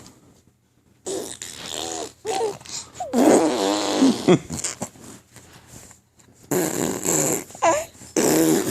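A baby blowing raspberries, buzzing the lips with some voice to make fart noises, in repeated bursts that begin about a second in, with a brief pause about six seconds in.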